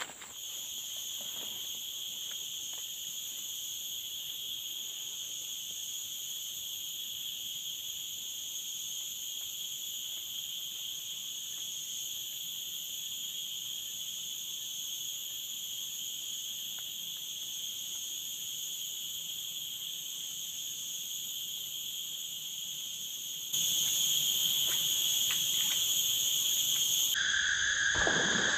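Steady, shrill chorus of forest insects: several high, unbroken tones that keep on without a pause, becoming louder about 23 seconds in.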